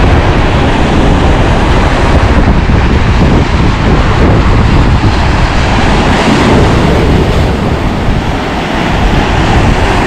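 Sea waves breaking on rocks and the shore, with wind buffeting the microphone: a loud, steady rush with heavy low rumble.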